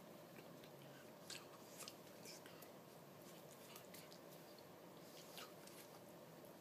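Near silence: faint room hiss with a few soft clicks scattered through it.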